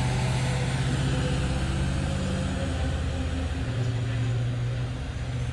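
Large mining haul truck's diesel engine running with a steady low note as the truck drives along.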